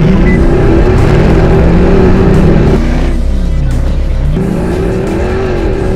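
Bowler off-road racer's engine running hard under acceleration on a drag run. Its pitch holds high, dips about three seconds in, then climbs again.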